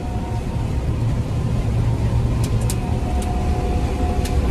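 Old combine harvester running under load while cutting soybeans, heard from its cab: a steady low rumble with a faint steady whine above it and a few light ticks.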